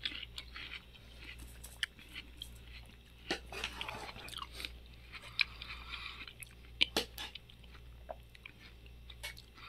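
Soft scattered clicks and brief rustles as biryani is scooped by hand from an aluminium pot, with a faint low hum underneath.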